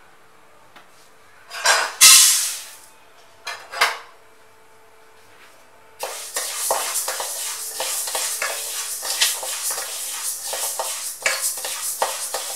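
A steel spoon stirring pearl millet grains as they dry-roast in a stainless steel kadai: a steady scraping rattle of grain over metal, from about six seconds in. Before that, a loud rushing rattle about two seconds in and a shorter one near four seconds.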